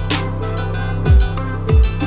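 Background music with a steady beat: sustained bass notes and deep kick drum hits, about a second in and again near the end.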